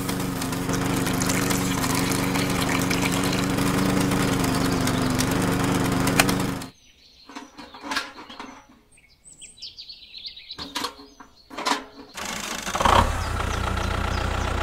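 A small motor of a miniature DIY shelling machine running with a steady hum, cutting off suddenly about six seconds in. After that come a few sharp light clicks and faint high chirps, and near the end a low steady engine hum starts.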